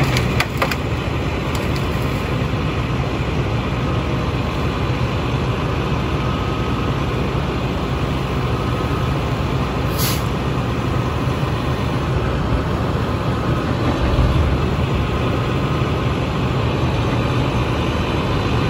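A truck-mounted Rotobec 910 knuckleboom loader working off a Western Star's diesel engine, which runs steadily under the hydraulic load while the grapple loads brush. A few sharp cracks come near the start, and a short hiss sounds about ten seconds in.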